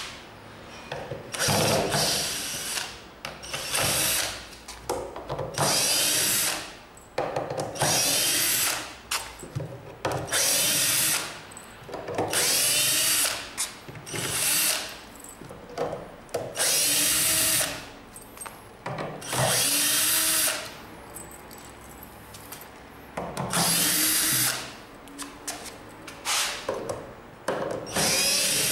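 Cordless drill-driver backing wood screws out of a plywood crate: about ten short runs of the motor, each a second or two long, with pauses between.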